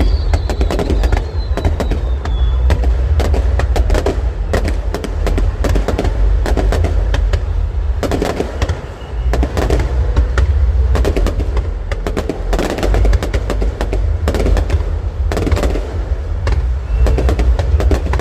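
Fireworks display: rapid, dense crackling and popping reports in close succession over a heavy low rumble, with a thin falling whistle in the first couple of seconds.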